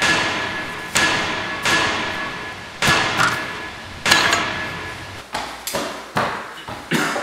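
A run of hard whacks, about eight in all, each sharp at the start and ringing out as it fades over about a second.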